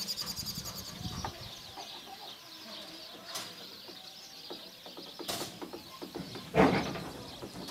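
Birds chirping outdoors, with a rapid rattling trill in the first second. A few light clicks and knocks sound, and a single loud thump comes about six and a half seconds in.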